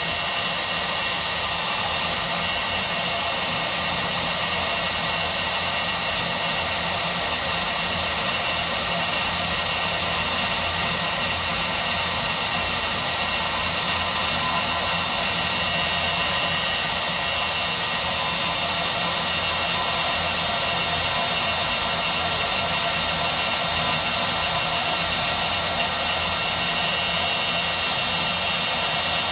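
Milwaukee portable bandsaw running steadily, its Lenox replacement blade cutting through aluminium stock. The blade cuts slowly, taking almost twice as long as the Milwaukee blade, which the owner takes for a poor blade.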